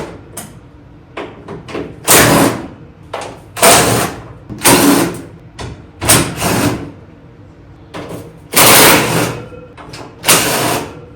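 Six short bursts from a power driver spinning out 3/8-inch bolts that hold the sheet-metal panels, each burst under a second with short pauses between.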